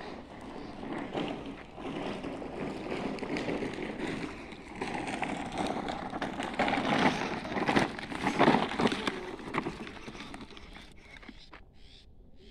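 Bicycle riding along a dirt lane: the rough rolling noise of tyres on grit and loose earth, loudest in the middle and dying away towards the end.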